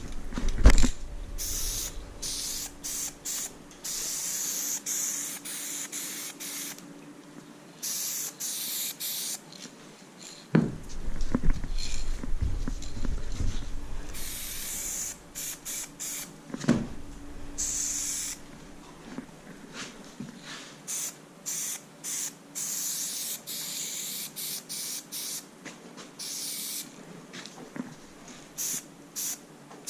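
Aerosol spray paint can hissing in many short, quick bursts, the can fitted with a high-output standard cap laying down thin second-outline lines. A few low scuffs and thumps of footsteps and handling come near the start and twice more around the middle.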